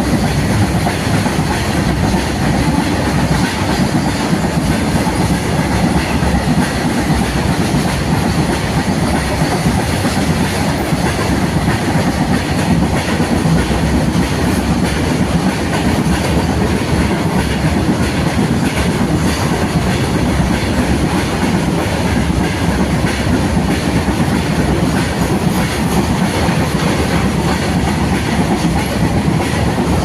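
Goods train passing: wagons rumbling and rattling with steady clickety-clack of wheels over the rail joints, continuous and loud throughout.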